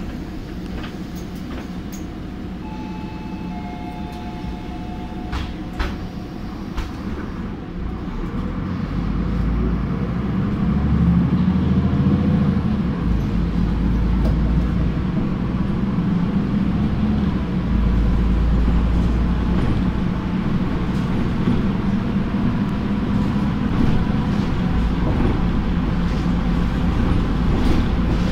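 Solaris Urbino 18 III articulated city bus heard from inside over a wheel arch. It stands quietly with a few short electronic beeps and clicks, then about eight seconds in the engine drone rises as the bus pulls away and accelerates, shifting in steps through the gears.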